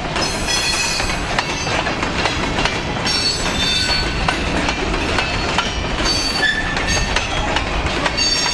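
Freight train's covered hopper cars rolling past at close range: a steady rumble of steel wheels on rail, with wheels clacking over the rail joints and short, high-pitched wheel squeals coming and going.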